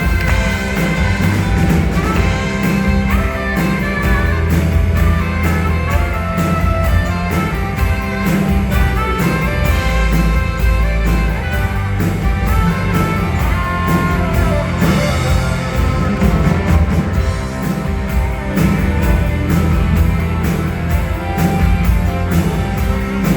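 Live rock music: a band playing with strong bass, guitar and drums keeping a steady beat.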